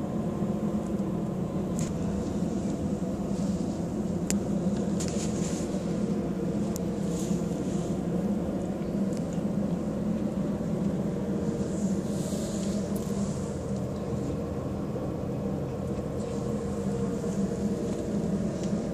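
Steady mechanical hum of an air conditioner's outdoor unit, with a few faint clicks over it.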